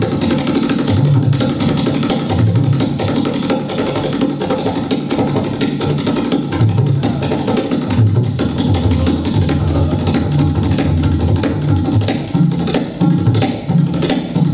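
Tabla played fast in a continuous, driving rhythm that imitates a train running at speed, not a slow passenger train. Deep booms of the bass drum (bayan) sound under rapid strokes on the treble drum (dayan).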